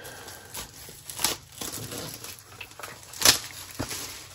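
Cellophane wrap being torn and pulled off a cardboard kit box, crinkling throughout, with sharp crackles about a second in and the loudest a little over three seconds in.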